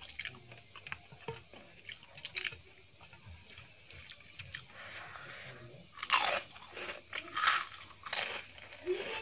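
Soft wet sounds of fingers mixing dal and rice on a steel plate, then crisp fried papad crunching loudly three times, about six to eight seconds in.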